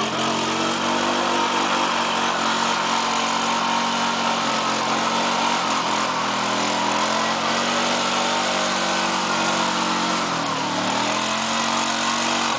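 Polaris Sportsman 500 ATV's single-cylinder four-stroke engine held at high revs as the quad ploughs through deep mud and water. About ten seconds in, the revs sag briefly and climb back as the machine bogs down.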